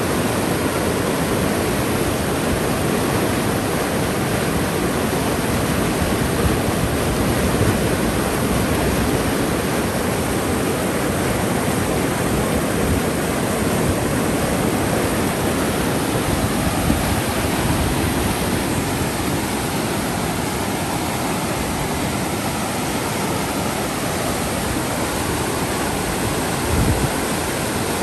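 Steady, loud rush of receding floodwater flowing past, an even noise with no breaks.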